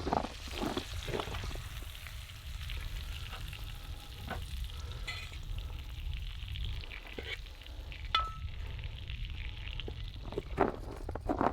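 Food frying and sizzling in a pan, a steady crackle with a few sharp clicks from a utensil.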